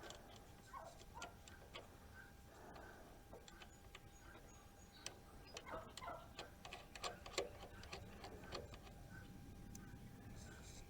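Faint, irregular clicking and light metallic taps of hand tools working on the starter solenoid's wiring nuts, with a cluster of sharper clicks about six to seven and a half seconds in.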